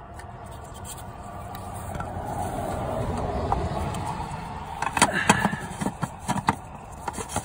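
Hand handling the plastic fuel filter housing and its lid: a rubbing scrape, then several sharp plastic clicks and knocks about five to six and a half seconds in as the lid is set in place.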